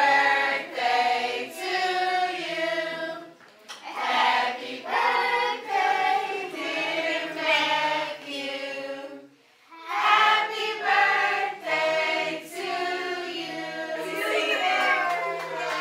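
A group of voices singing together in unison, in long sung phrases with short pauses between them.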